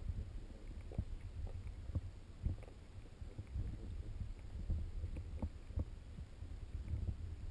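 Underwater sound picked up through a GoPro HD Hero2's waterproof housing: a low, muffled rumble with irregular dull knocks and thuds from water moving against the housing.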